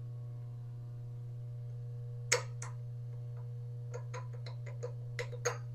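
Metal spacers and the wheel flange on a surface grinder spindle clicking and clinking as they are handled and worked off by hand. There is one sharp click about two seconds in, then a quick run of lighter clicks near the end, over a steady low hum.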